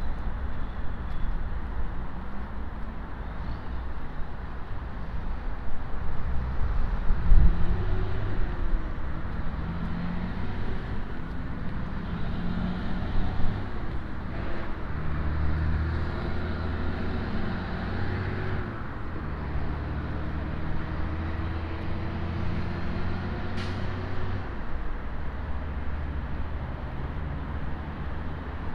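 Road traffic passing along a city street: motor vehicle engines and tyres over a low rumble, with engine tones rising and falling as vehicles go by.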